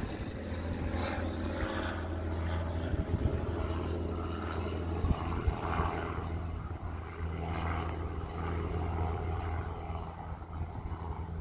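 A steady low mechanical drone, like an engine or motor running, with fainter uneven noise above it.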